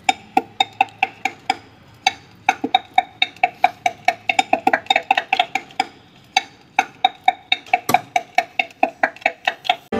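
Piston being tapped down through a steel ring compressor sleeve into a tractor engine's cylinder liner with the end of a handle: runs of sharp taps, about three to four a second, each with a short metallic ring, with brief pauses about two seconds in and about six seconds in.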